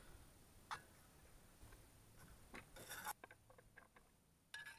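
Faint, sparse handling of camp cookware: a click about a second in, a short scrape around three seconds, and a metal clink with a brief ring near the end as the cast iron pan of food is handled.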